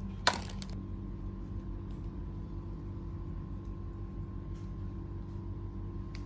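Steady low electrical-sounding hum with a faint higher tone above it, and one sharp click a fraction of a second in.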